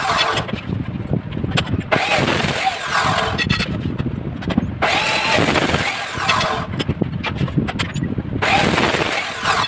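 Abrasive cut-off saw grinding through square steel tubing in about three short cuts, each lasting one to two seconds, with the motor whining. Steel tubes clank between the cuts.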